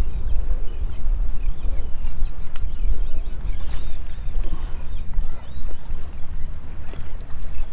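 Wind buffeting the microphone in a steady low rumble, with a few faint bird calls in the middle.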